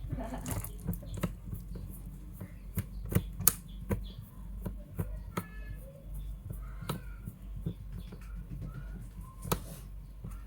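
Irregular sharp clicks and taps, one to three a second, of hands working on a laptop with small tools and parts, over a steady low hum.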